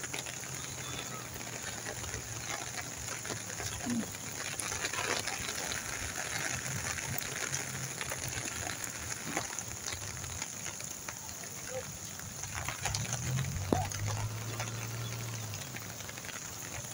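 Heavy rain falling on a wet road: a steady hiss with scattered drop patter. Underneath runs the low hum of car engines turning nearby, swelling about two-thirds of the way in.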